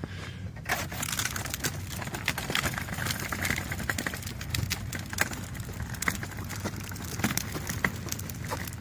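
Collapsible utility wagon being pulled on hard plastic wheels over asphalt and then concrete sidewalk: a steady rolling rumble with many quick clicks and rattles from its frame and load.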